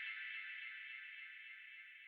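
Background music fading out at its end: a sustained high, bright chord ringing on and dying away steadily.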